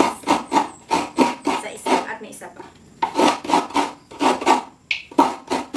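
Coconut half being grated on the serrated blade of a stool coconut grater (kudkuran): fast rasping scrapes at about four strokes a second, with two short pauses around two seconds and five seconds in.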